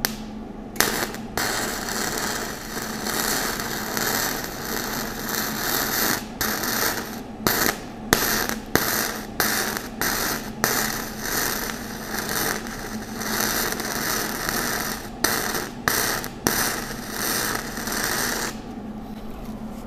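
Flux-core arc welding with a Millermatic 141 wire-feed welder set with the voltage too high and the wire feed speed too low: the arc runs as a loud, rough noise that keeps cutting out and restarting in many short gaps. It is burning hot, but the wire feed isn't sufficient and the wire just trickles out. It starts about a second in and stops shortly before the end.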